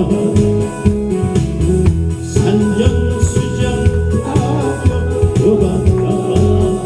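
Instrumental introduction of a Korean trot song played from a backing track: sustained melody notes over a steady drum beat.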